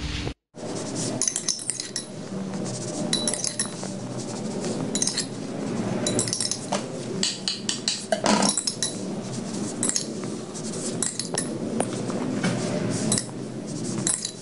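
A fork poking holes into a baked sponge cake, with many short irregular clinks of the utensil against the cake plate.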